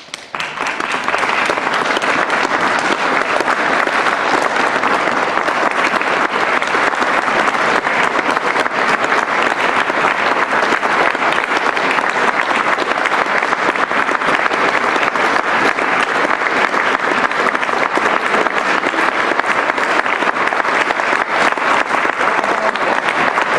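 Theatre audience applauding: clapping breaks out at once, swells to full strength within about a second and then keeps on steady and dense.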